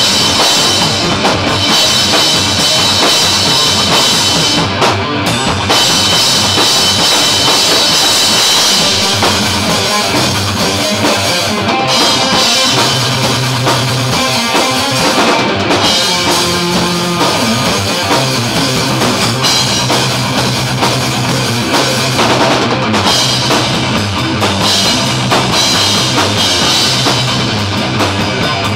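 A heavy metal band jamming live: a drum kit with bass drum and cymbals played hard under electric guitar riffs, loud and continuous.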